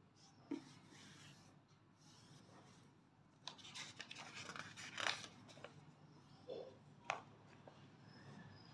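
A paper book page being turned by hand: faint rustling of the sheet for a second or two around the middle, with a couple of short handling clicks before and after.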